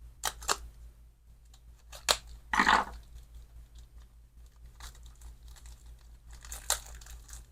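Packaging of a new chainsaw clutch drum crinkling as it is handled, with a few sharp clicks early on and a short rush of noise about two and a half seconds in.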